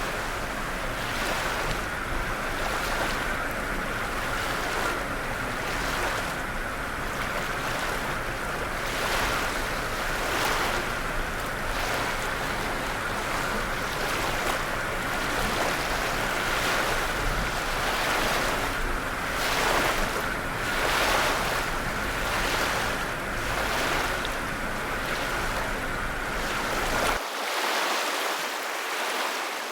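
Ocean waves breaking and washing on a shore: a continuous rushing surf noise that swells every second or two. Near the end the deep low rumble drops away, leaving a thinner wash.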